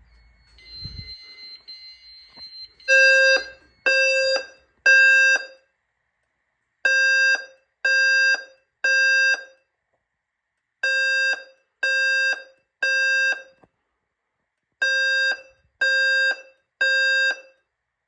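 Simplex TrueAlert speaker strobe sounding the temporal-three fire evacuation tone: three half-second tones, a pause, and the pattern repeated four times. It is the alert tone that comes before the voice evacuation message. A fainter high electronic tone plays briefly just before the first group.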